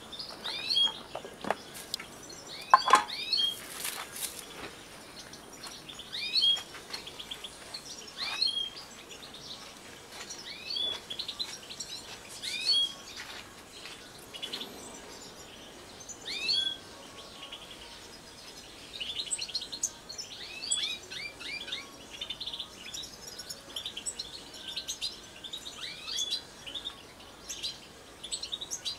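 European goldfinches calling: short, downward-sliding call notes every second or two, turning into busier twittering about two-thirds of the way through. A few sharp knocks come in the first few seconds.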